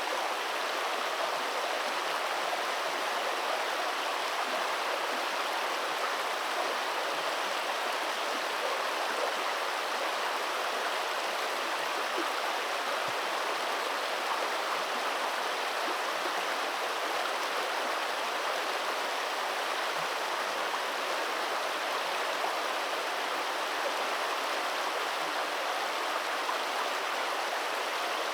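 Steady rush of flowing stream water, an even unbroken noise.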